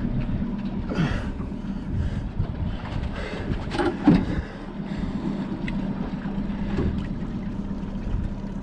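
Boat's outboard motor idling with a steady low hum, with a few short knocks and rustles about one, four and seven seconds in.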